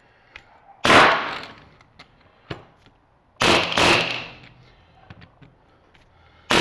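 Central Pneumatic air hammer with a chisel bit firing in short rattling bursts against the welds of a transformer's steel core: a brief burst about a second in, a longer one at about three and a half seconds, and another starting near the end, with light metal clinks between.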